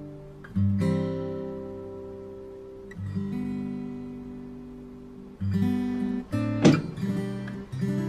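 Background music: an acoustic guitar strumming slow, sustained chords, a new chord about every two to three seconds, with one sharper, louder accent about two-thirds of the way through.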